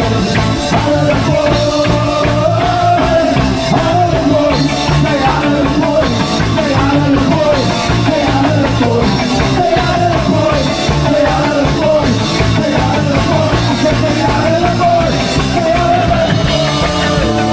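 Live band playing loud amplified rock music with a steady beat.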